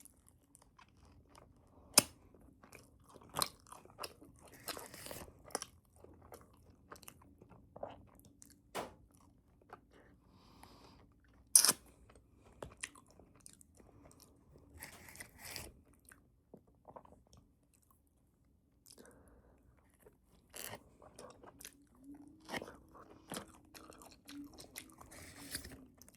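Close-up chewing and crunching of a crunchy bagel with cream cheese, in irregular crunches. The two loudest are sharp bites about 2 seconds and 11½ seconds in.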